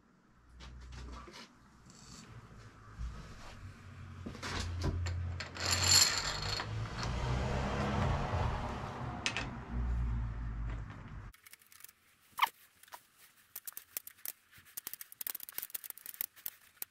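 Metal parts of a Cyclus headset press and a steel headset cup being handled and fitted to a bicycle head tube: low knocks and rubbing with scattered metallic clinks, and a brief metallic ring about six seconds in. Past the middle the background drops away abruptly, and there is a run of quick, light metallic clicks as the press's T-handle is worked.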